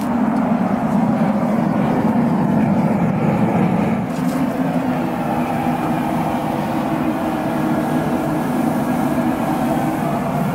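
Steady rumbling roar of a propane gas forge burner running, heating the Damascus billet to forge-welding heat; the level dips slightly about four seconds in.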